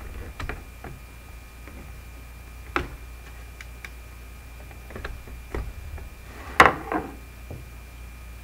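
Scattered small clicks and taps of plastic and metal as a flathead screwdriver and paperclip shims are worked into the snap tabs of a plastic 3D-printer filament cartridge, with two louder knocks about six and a half seconds in.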